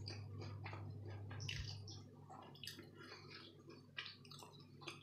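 Someone chewing a bite of crispy breaded chicken strip: faint, irregular crunching, over a steady low hum.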